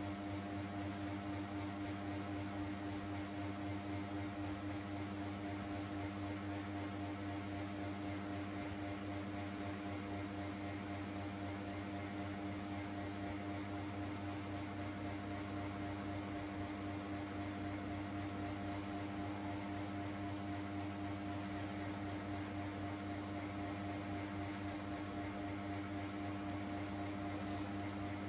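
Steady machine hum, several fixed tones over an even hiss, unchanging throughout.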